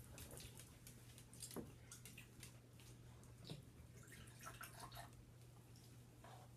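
Faint sound of blue Gatorade being poured from a plastic bottle into a cup, with light clicks from handling the bottle and a low steady hum underneath.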